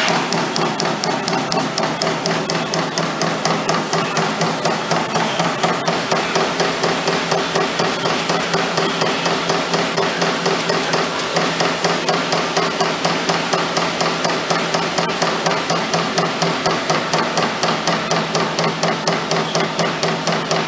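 Trumpf Trumatic 2020R 22-ton CNC turret punch punching sheet metal: sharp, even hits at about four a second over a steady machine hum.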